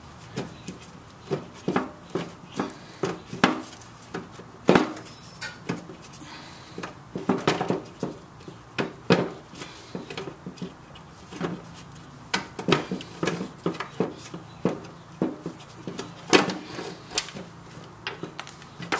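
Irregular metal clinks and knocks as the loosened engine mounting bolts are worked out by hand from a rusted steel lawn mower deck.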